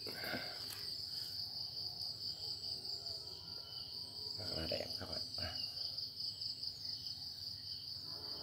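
Crickets chirring steadily in the background, with a few soft knocks from the machine being handled about four and a half to five and a half seconds in.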